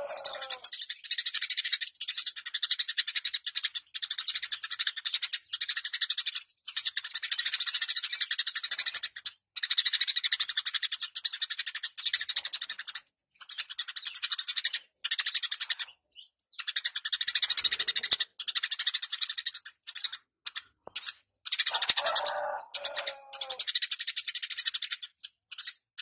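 Eurasian tree sparrow chirping and chattering in long, very rapid, high-pitched bouts broken by short pauses. A lower, falling call sounds at the start and again about three quarters of the way through.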